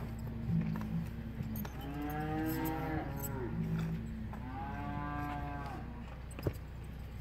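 Cattle mooing: two long calls that rise and fall, about two and five seconds in, over lower calls from other cattle.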